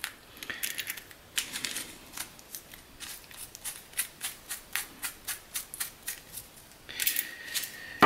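A 4-pin P20 Cannon-type metal circular connector being twisted by hand, its threaded coupling parts giving a run of small sharp metallic clicks, about three a second through the middle, with some rubbing and scraping near the end.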